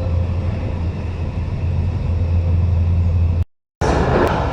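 Metro train running, heard from inside the car: a steady low hum with faint steady tones over it. It cuts out abruptly about three and a half seconds in, then resumes as a noisier rattling ride sound.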